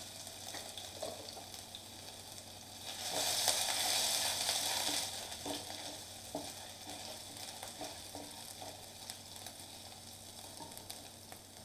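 Cumin seeds and chopped ginger sizzling in hot ghee in a kadhai. The sizzle swells louder from about three to five seconds in, then settles to a faint crackle with a few light ticks.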